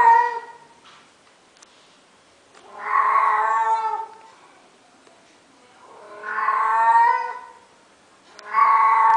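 Female cat in heat yowling in long drawn-out calls, about one every three seconds: the tail of one call at the start, two full calls, and another starting near the end.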